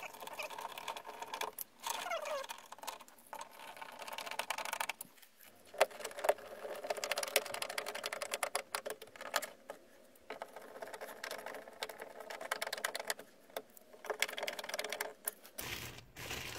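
Hand screwdriver turning screws through a plastic speaker adapter ring into a car door: scratchy turning noise and small clicks, with a short falling squeak about two seconds in.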